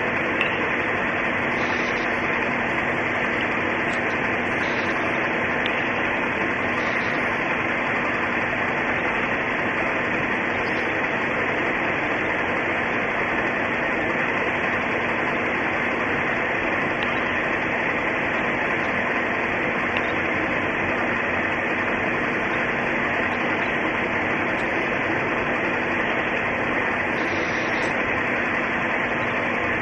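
Steady, even hiss of noise with a faint low hum underneath, unchanging throughout.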